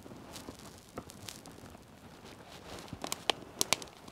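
Campfire crackling softly, with a cluster of sharper pops about three seconds in.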